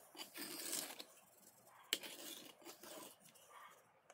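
A flat trowel scraping and smoothing wet concrete, in gritty strokes, with a sharp click about two seconds in.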